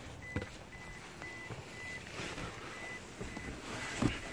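A 2014 Toyota Fortuner's warning chime beeping steadily, about twice a second, with the driver's door open. A knock about half a second in and another near the end as someone climbs into the driver's seat.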